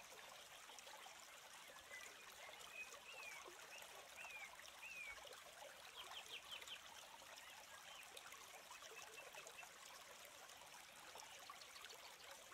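Near silence: a faint steady hiss of background ambience, with a few faint short chirps between about two and five seconds in and a quick run of faint ticks around six seconds.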